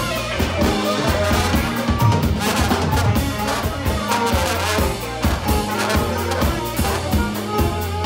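Live band playing: saxophone and trombone over a drum kit, bass, electric guitar and keyboard.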